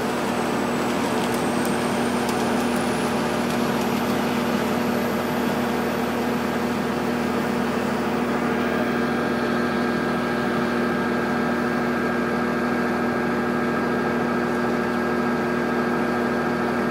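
Construction machine's engine idling steadily, a constant drone with a faint high whine that climbs in pitch over the first few seconds.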